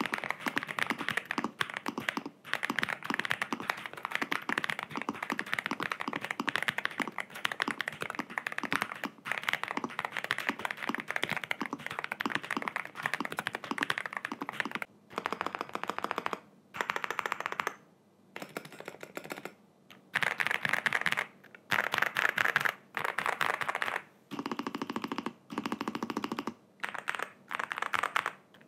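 Typing test on a NuPhy Gem80 custom TKL mechanical keyboard with PBT keycaps: fast, continuous keystroke clatter for about the first half, then bursts of typing broken by short pauses.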